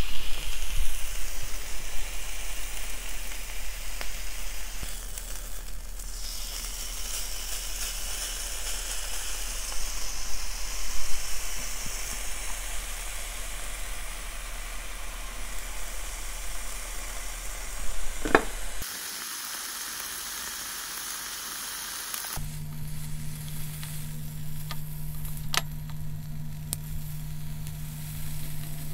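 Beef slices sizzling on a grill pan over a mini brazier's flame: a steady frying hiss. A couple of sharp clicks come in the later part, and a low steady hum joins for the last few seconds.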